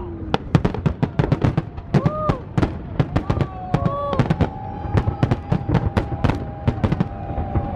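Fireworks display: aerial shells bursting in quick succession, a dense run of sharp bangs and crackles. People call out about two and four seconds in, and a steady whistle-like tone is held through the second half.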